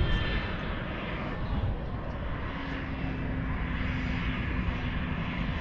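Airplane engine noise at an airport: a steady, noisy engine sound with a low rumble, and a faint steady hum joining about halfway through.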